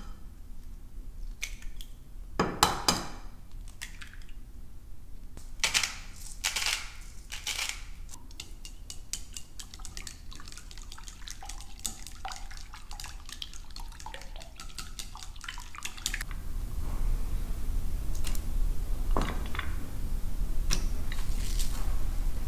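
Kitchen cooking sounds: dishes and utensils clinking, tapping and knocking, with some water sounds. About two-thirds of the way through, a steady low rushing noise starts and runs on under a few more knocks.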